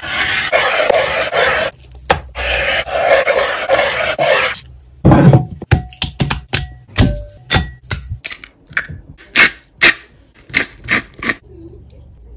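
A knife slicing through raw boneless chicken thighs on a wooden cutting board: dense cutting noise for about four and a half seconds, with one short break. Then chicken pieces drop one after another into a glass bowl, a quick run of sharp taps, some with a brief glassy ring.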